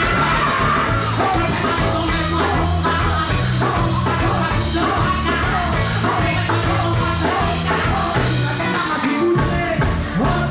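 Loud rock music from a band with a singer: a bass line stepping between notes under steady drums, and vocals on top.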